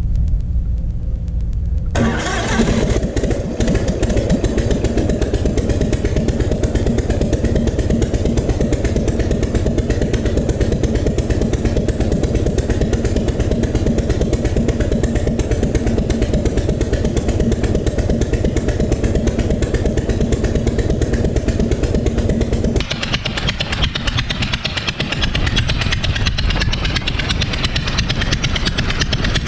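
Verner 3V three-cylinder radial aircraft engine with a wooden propeller catching about two seconds in and then running steadily at a constant speed, on a factory-stock Mikuni carburettor whose mixture and idle are not yet set. About three-quarters of the way through, the sound changes abruptly to a closer, hissier mix of engine and propeller.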